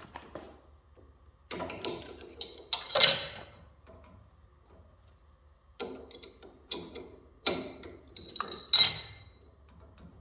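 Metal-on-metal clinks and knocks from steel parts and tools handled on a shaper spindle, as pieces are taken off during a spindle swap. They come in two bursts of clatter, with the loudest knocks about three seconds in and near the end, some with a short metallic ring.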